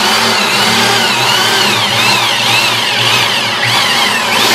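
Corded electric drill running as it bores an angled hole, at about 45 degrees, into an MDF shelf. Its motor whine rises and falls over and over.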